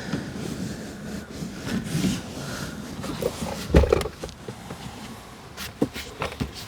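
Car seat being worked into the car through the door opening: scraping and rustling against the interior trim, a heavy thump about four seconds in, then a few light knocks near the end.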